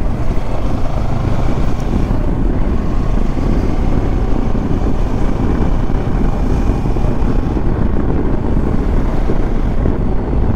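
Kawasaki Versys motorcycle riding at road speed: engine running under heavy, steady wind noise on the microphone.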